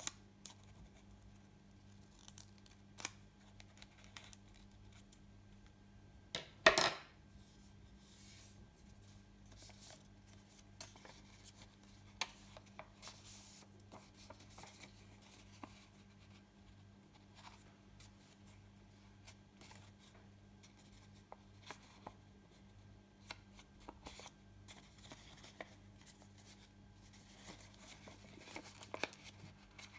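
A sheet of paper handled and folded by hand: scattered light rustles and taps, with one louder, sharp swipe of paper about seven seconds in. A low steady hum runs underneath.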